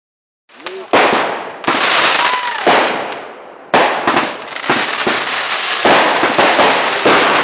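Aerial fireworks going off: about six sharp bangs, roughly a second apart, with a dense crackling hiss of burning sparks between them. The bangs start about a second in.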